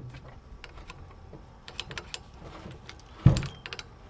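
Light metal clicks and clinks of a wrench and bike parts being handled while a BMX stem is loosened, with one heavier knock a little past three seconds in.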